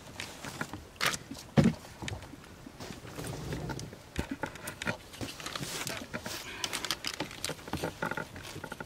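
Scattered clicks, knocks and rustling of a yo-yo fishing reel and its line being handled at the side of a small boat, with a couple of sharper knocks in the first two seconds.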